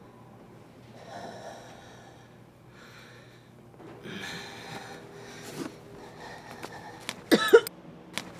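A person breathing heavily in several short bursts, then a woman coughing sharply twice near the end.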